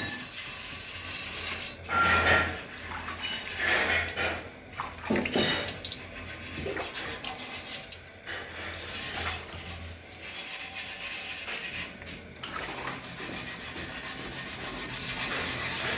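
Irregular rubbing and scraping strokes of hand work on a surface, as in sanding or filing during a repair. The loudest strokes come in the first six seconds, and softer scraping follows.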